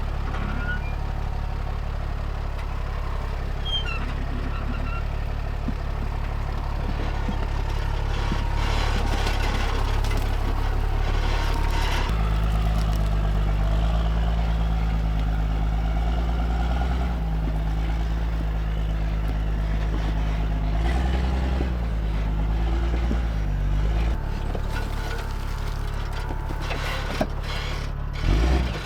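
Heavy diesel truck engine, the Ram 5500 wrecker's Cummins, running steadily while the truck drives slowly over rough ground; its engine speed steps up about twelve seconds in and settles back down near twenty-four seconds. A short knock comes near the end.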